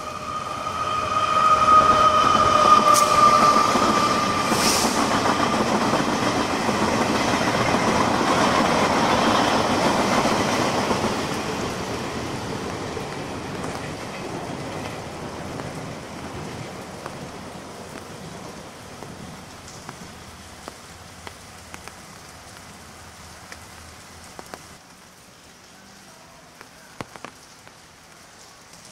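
Locomotive-hauled Chu-Kuang Express passenger train sounding one long horn blast of about four seconds as it approaches. It then passes with a loud rumble of wheels on the rails, loudest around ten seconds in, that fades slowly as the train moves away.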